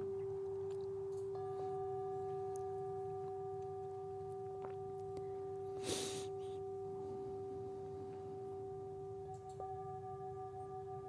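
Metal singing bowl ringing with a steady low hum that slowly fades, higher overtones joining about a second and a half in and again near the end as the wooden mallet works the rim. A brief soft rush of noise about six seconds in.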